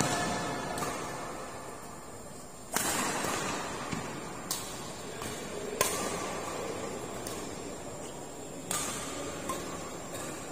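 Badminton rackets striking a shuttlecock back and forth in a doubles rally: a sharp crack about every one and a half seconds, seven hits in all.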